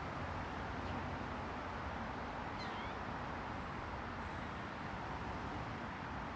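Squirrel giving two faint, very high-pitched bird-like chirps over a steady background hiss and hum. The first, about two and a half seconds in, wavers and slides downward in pitch; the second comes about a second and a half later.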